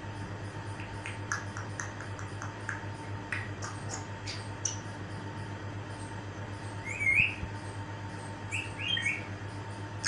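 African grey parrot making a string of short clicks and chirps, then a loud rising whistle about seven seconds in, followed by three short whistles.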